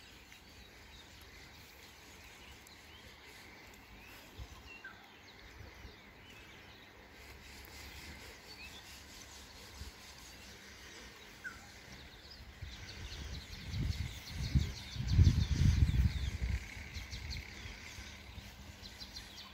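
Quiet garden ambience with scattered short bird chirps, which grow into busier high chirping in the second half. A loud low rumble comes about two-thirds of the way through.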